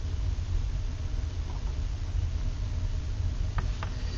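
Steady low background rumble, with two faint small clicks close together about three and a half seconds in as small rifle parts, a trigger and a plastic pistol grip, are handled.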